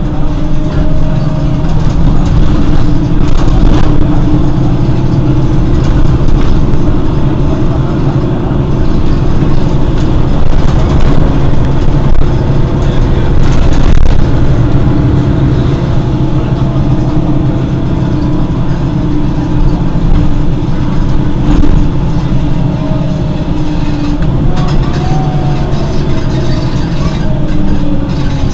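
Mercedes-Benz Citaro city bus's rear-mounted diesel engine idling with a steady, loud low drone.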